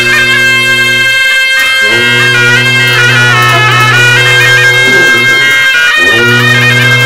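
A pair of Tibetan gyaling, double-reed shawms with flared brass bells, playing a wavering, ornamented reedy melody over a low held drone. The drone breaks off twice, briefly about a second in and again around five seconds in.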